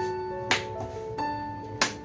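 Background piano music with sustained notes, with two sharp hits about a second and a half apart.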